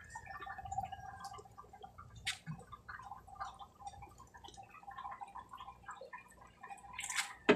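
Faint water splashing and dripping as hands work in a glass aquarium, with scattered small ticks. A sharp knock near the end.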